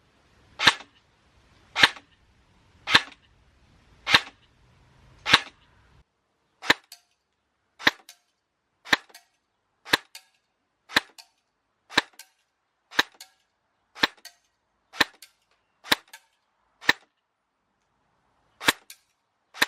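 Barrett M82 airsoft SAEG (semi-automatic electric gun) firing single shots, about one a second. Each shot is a short sharp crack, many followed by a faint click.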